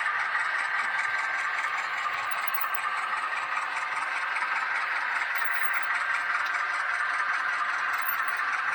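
H0-scale model of a Renfe Alco 313 diesel locomotive running along the track, pushing a camera car: a steady whirring of the small motor and gears with the wheels running on the rails.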